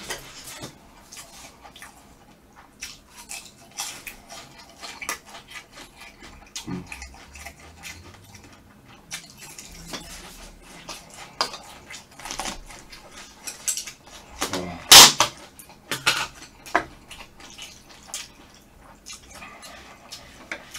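Close-up eating sounds: chopsticks clicking against the dishes and chewing of crispy fried seaweed rolls (gimmari), in many short clicks and crunches. One much louder sharp clack comes about fifteen seconds in.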